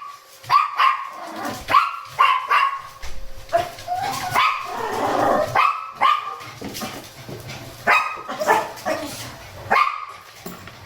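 Small pet dog barking repeatedly in short, high barks, with a longer whining call about halfway through. This is impatient, complaining barking while the dog is made to wait for its walk.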